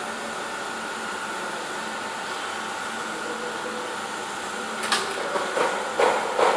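Welding arc on a steel pipe joint during the cap pass: a steady hum and hiss, turning to an irregular, louder crackle about five seconds in.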